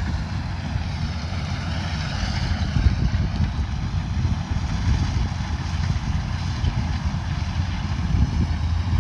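Kubota combine harvester running at work: a steady low diesel-engine rumble with a constant hiss above it.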